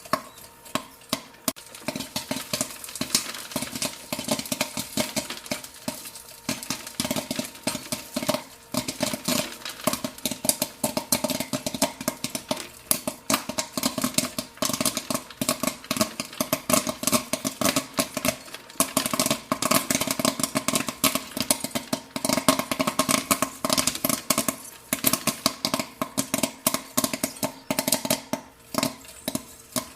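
Popcorn kernels popping in rapid, irregular pops, many each second, over a steady hum.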